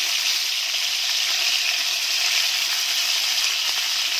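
Chicken kofta balls sizzling steadily as they fry in hot oil in a pan, browning.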